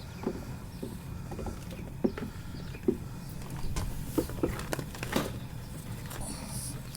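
Wooden beehive boxes being handled, with scattered light knocks and clunks, the loudest about two, three, four and five seconds in, over a steady low hum.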